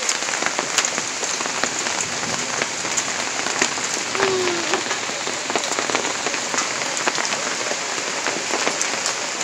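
Heavy thunderstorm rain mixed with hail falling on the trees and ground: a steady loud hiss with many sharp ticks of individual hailstones and drops striking.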